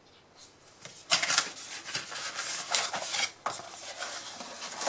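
Cardboard box being opened and its packaging handled: irregular rustling and scraping of cardboard and a soft pouch, starting about a second in after a brief quiet.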